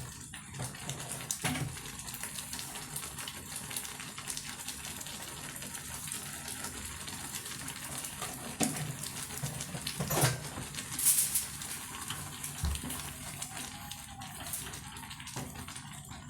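Ugali being stirred in a pot with a wooden cooking stick: a steady wet churning hiss with scattered knocks and scrapes against the pot, the loudest about ten seconds in.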